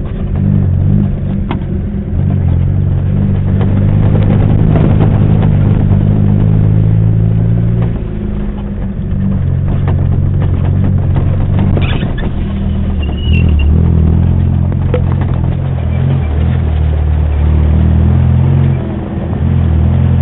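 Off-road vehicle's engine running at low speed, its pitch shifting up and down and easing off twice. Short knocks and rattles come through as it jolts along a rough, muddy track.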